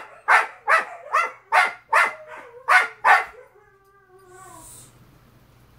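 Huskies complaining to each other: a quick run of loud, short barking calls, about two a second, ending a little past three seconds in with one drawn-out call that falls in pitch.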